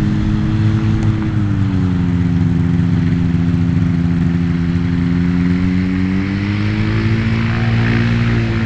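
An engine running steadily; its pitch drops about a second in, holds lower for several seconds, then rises back near the end.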